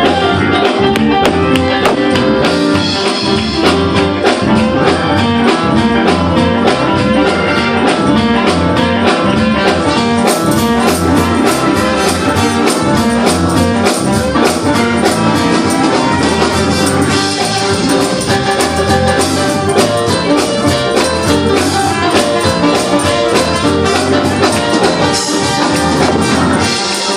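Live gospel praise break played by a church band: drum kit keeping a fast, driving beat under keyboard and trumpet, loud and unbroken throughout.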